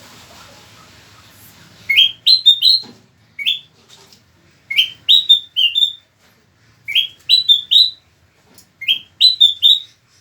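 Kutilang mas bulbul singing: about five short phrases of rising whistled notes, each phrase two to four notes, with short pauses between them.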